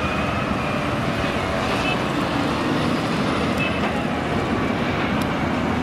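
Heavy fire rescue truck driving along a street: steady engine and road noise.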